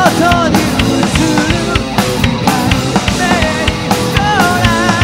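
Rock band playing live: a drum kit keeping a steady beat under electric bass and guitar, with a wavering melodic line on top.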